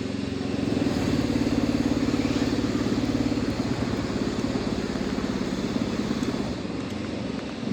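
Electric drill running steadily, its motor giving a low hum with a fast flutter, slightly louder from about a second in.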